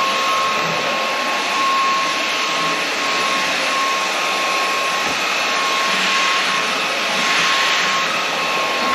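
Inse S610 cordless stick vacuum running steadily while vacuuming a floor: a steady rush of suction air with a thin, high, constant motor whine.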